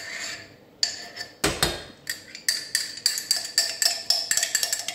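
Metal spoon knocking and clinking against a small pot while cream is spooned out of it into a saucepan. One hard knock comes about a second and a half in, then a quick run of light, ringing clinks.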